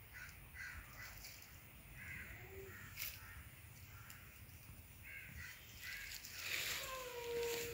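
A young goat bleating: a short faint bleat about two and a half seconds in and a longer one near the end. Crows caw in the background.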